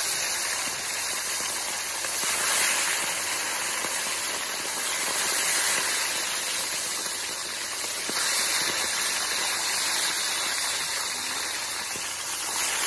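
Whole salted tilapia deep-frying in a wok of hot oil: a loud, steady sizzle as the oil bubbles hard around the fish.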